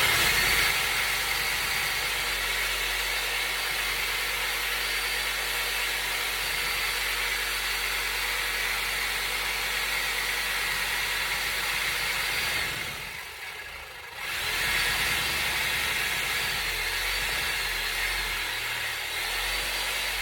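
Power tool cutting through cast iron drain pipe, a steady loud hissing cut that stops briefly about two-thirds of the way in and then starts again.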